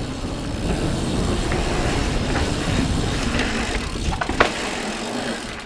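Mountain bike rolling fast down a paved lane, heard through the rider's action camera: a steady rumble of wind on the microphone and tyres on tarmac, with two sharp knocks from the bike about four seconds in.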